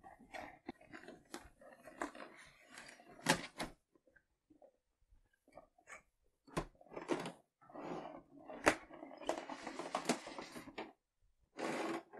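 Cardboard figure box and clear plastic blister tray being handled and unpacked: a string of knocks, taps and rustles, with a busier spell of rustling and scraping from about seven to eleven seconds in.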